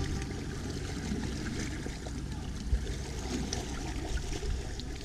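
Sea water lapping and washing among shoreline rocks: a steady wash with a low rumble and small scattered clicks and splashes, and one sharper knock a little past halfway.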